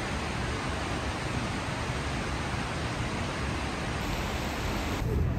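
Fountain water jets splashing into a shallow pool, a steady rushing hiss that breaks off abruptly near the end.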